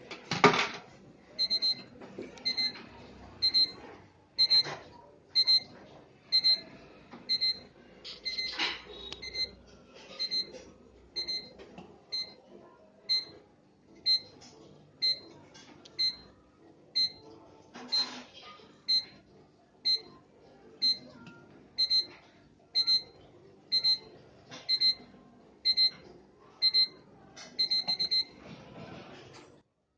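Coin-operated water vending machine's electronic beeper giving a short high beep about once a second while dispensing is paused, with a quick flurry of beeps near the end as the stop button is pressed. A coin clatters into the coin acceptor just after the start, and a few knocks come in between.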